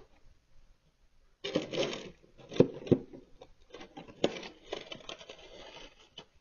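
Plastic snow shovel scraping over a snowy driveway in several strokes, with a few sharp knocks of the blade on the pavement.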